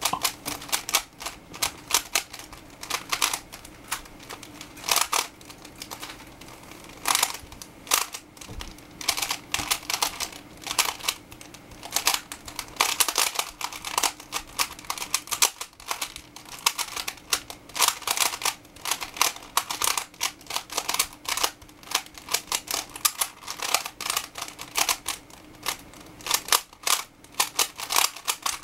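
Plastic 3x3 Rubik's cube being turned fast during a timed speedsolve: its layers click and clack in quick, irregular runs with short pauses between them.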